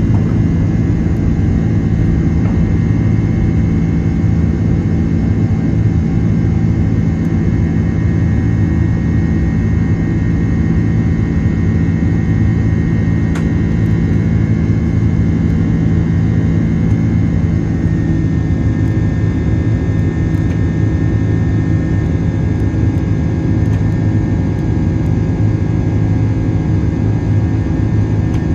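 Cabin noise of an Airbus A330-300 climbing after takeoff, heard from a window seat by the engine: the jet engines give a loud, steady drone with humming tones. The tones shift slightly lower about two-thirds of the way through.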